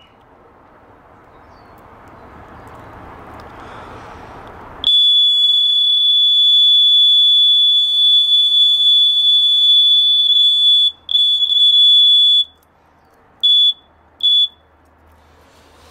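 A continuity tester beeps with a steady high-pitched tone, showing continuity through the newly fitted thermal fuse in the charger's transformer circuit. It sounds for about five seconds after some faint hiss, cuts out, comes back for just over a second, then gives two short beeps near the end.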